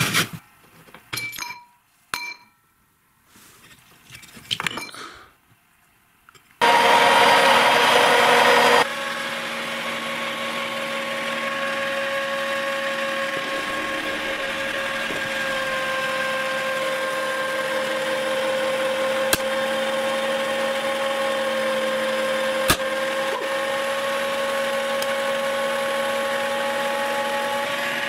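Electric meat grinder: a few seconds of scattered metal clicks and clunks as the grinder head is handled, then the motor starts about six seconds in and runs with a steady hum for the rest, while food is pressed down the feed tube with a plastic pusher. Two sharp clicks stand out later on.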